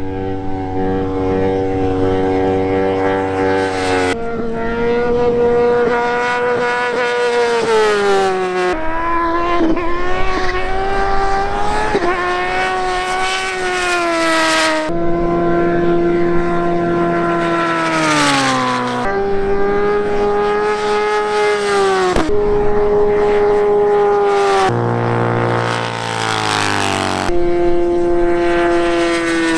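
Motorcycle engines at full throttle, one after another, as bikes pull wheelies past on a runway. Each engine note holds high and then drops in pitch as the bike goes by. The sound changes abruptly every few seconds as one bike gives way to the next.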